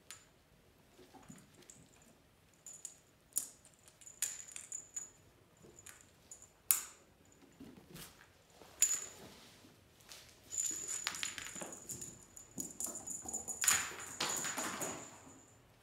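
Kittens playing with toys on a fabric cat bed: scuffles, taps and rustles. A small bell-like jingle comes and goes, with the longest and loudest stretch near the end.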